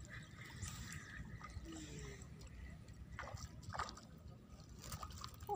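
Faint water splashing and sloshing, with a few short splashes about three to four seconds in, over a low rumble.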